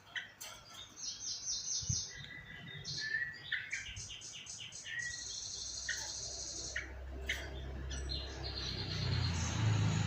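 Yellow-vented bulbul chirping and trilling in quick runs of short, bright notes. A low rumble builds up in the second half.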